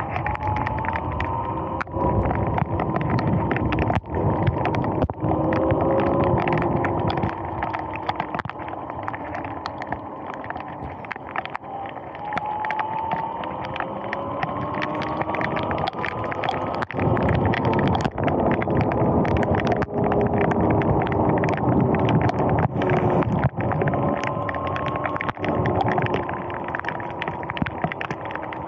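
Sur-Ron X electric dirt bike riding on wet pavement: a motor whine that slowly rises and falls in pitch with speed, over a steady rush of wind and tyre spray. Frequent sharp ticks of rain hitting the camera run through it.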